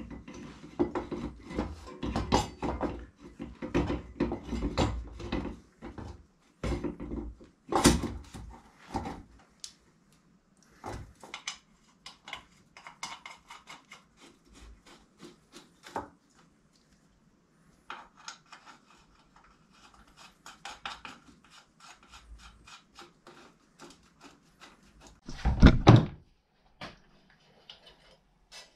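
Irregular knocks, clicks and scrapes of parts and hand tools being handled during a workshop job, busy at first and sparser later, with a louder clatter near the end.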